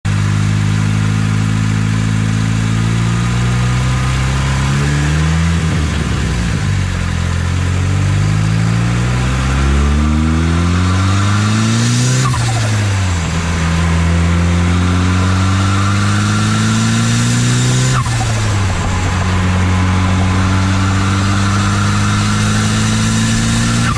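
Turbocharged Chevrolet Cobalt SS engine with a ZFR turbocharger, heard at the turbo, driven under acceleration. The engine's pitch climbs with the revs and drops sharply at gear changes about six, twelve and eighteen seconds in, then holds fairly steady between the later shifts.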